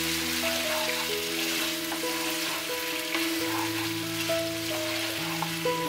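Duck pieces frying in hot oil in a non-stick pan, a steady sizzle, with faint scraping as a wooden spatula stirs them. Soft background music with held notes plays under it.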